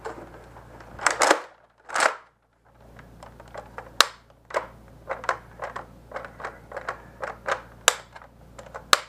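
Nerf Rival Atlas XVI-1200 foam-ball blaster being worked: two loud sharp bursts about a second apart near the start, then after a brief gap a long run of sharp plastic clicks and clacks, a few much louder than the rest.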